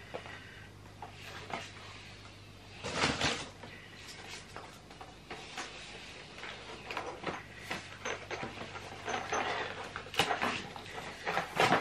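Cardboard box being opened and handled by hand: rustling, scraping and tapping of cardboard flaps and packaging, with louder bursts of rustling about three seconds in and again near the end.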